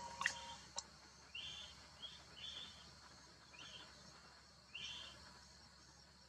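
A bird giving short, high calls about six times, some in quick succession, over a faint steady trill of insects. Two sharp clicks in the first second.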